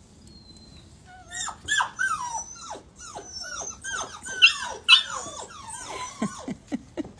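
Several puppies whining and yipping over one another as they jostle in a crowded tub: a rapid run of short, high cries that each fall in pitch, starting about a second in and turning shorter and lower near the end.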